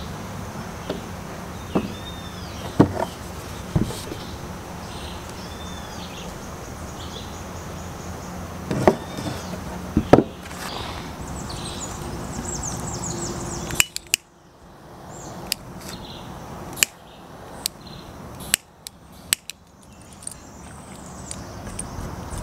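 Scattered sharp knocks and clicks of wooden branch pieces and a saw blade handled on a wooden plank workbench while a homemade buck saw frame is fitted together, over repeated chirps in the background. About two-thirds through the background drops away and a run of crisper clicks follows.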